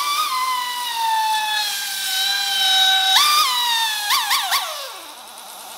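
Pneumatic hand tool running off its air hose: a high whine with a hiss of air that sags slowly in pitch, jumps back up, gives a few quick trigger blips about four seconds in, then winds down.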